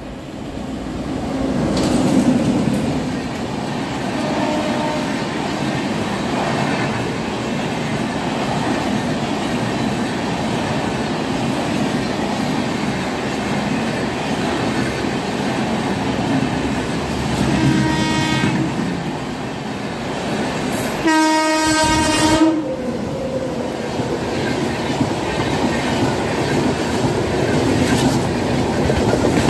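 Express train hauled by a WAP-7 electric locomotive passing close by at speed: steady rumble and clatter of wheels over the rail joints, swelling about two seconds in as the locomotive arrives. A train horn sounds faintly and briefly about 18 seconds in, then loud and clear for about a second and a half just after 21 seconds.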